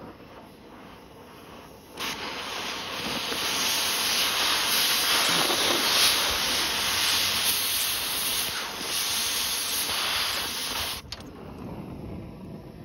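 Oxy-acetylene cutting torch hissing as it cuts through a pistol. The hiss is quieter at first, turns loud and steady about two seconds in, and cuts off abruptly about eleven seconds in, leaving a softer hiss.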